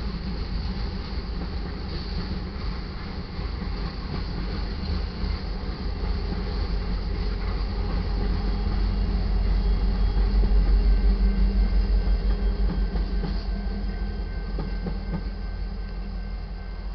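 Freight train passing a grade crossing: ore cars' wheels rolling and clacking over the rails, then the rear distributed-power locomotive, an EMD SD70MAC with a two-stroke diesel, goes by. The rumble swells to its loudest about ten seconds in, then fades as the end of the train clears.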